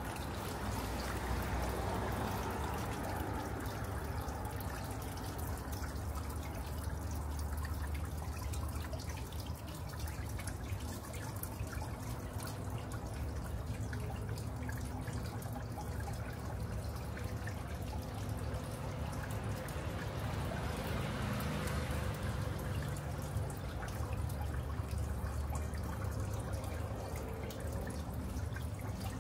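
Water trickling and dripping steadily, over a low steady rumble.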